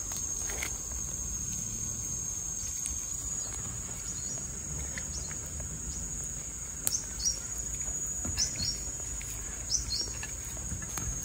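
Insects droning steadily at a high pitch, with a handful of short, falling bird chirps in the second half over a low background rumble.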